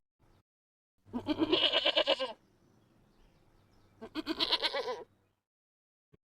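Two loud animal calls with a wavering, quavering pitch: the first lasts just over a second, the second about a second, with a short pause between them.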